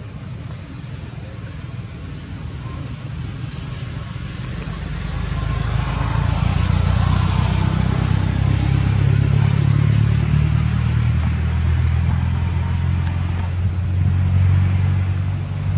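A motor vehicle's engine running nearby as a low, steady rumble, growing louder about five seconds in and staying loud.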